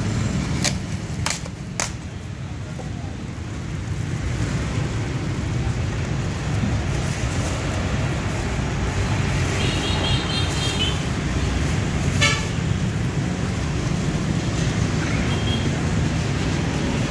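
Steady street traffic rumble with a vehicle horn tooting briefly about ten seconds in. Three sharp knocks near the start and another about twelve seconds in.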